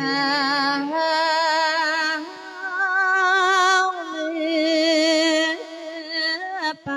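Thai Buddhist monk singing a verse sermon (thet klon) into a microphone. He holds long, drawn-out notes with a strong wavering vibrato and slides between pitches, with a brief break in the line near the end.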